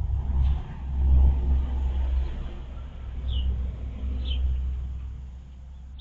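A low rumble that swells about a second in and then slowly fades, with a few short, high chirps from a bird.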